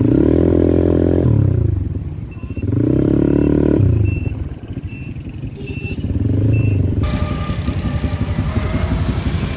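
Motorcycle engine revving up and easing off three times in street traffic, with a row of short high beeps in between. From about seven seconds in, a denser, steady traffic noise takes over.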